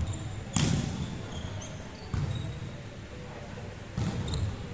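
Volleyball hit three times during a rally, about a second and a half apart; each hit is a sharp slap that rings on in the big gym hall. Short high sneaker squeaks on the court floor come in between.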